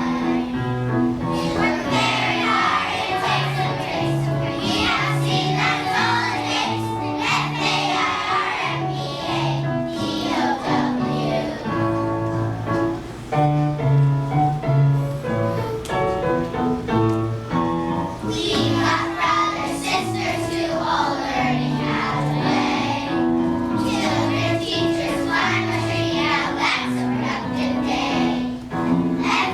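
A group of children singing a song together over backing music, with a mostly instrumental stretch about halfway through.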